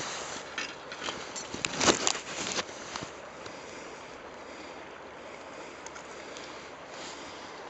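Steady rush of shallow river water, with a few short splashes about one and a half to two and a half seconds in as a rainbow trout held by the tail is moved in the water.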